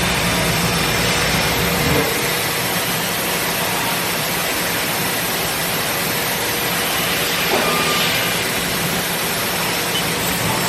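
Haas VF-4 CNC vertical machining center running under power, a steady mechanical whir and hiss; a low hum underneath stops about two seconds in.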